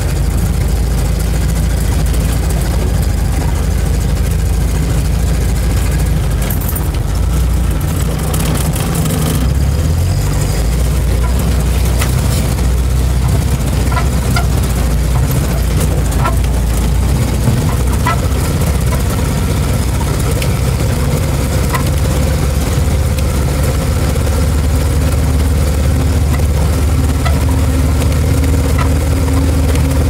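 UAZ-469B's four-cylinder petrol engine running steadily as the jeep drives along a rutted dirt track, heard from inside the cab, with occasional light knocks and rattles. The engine note steps up about ten seconds in.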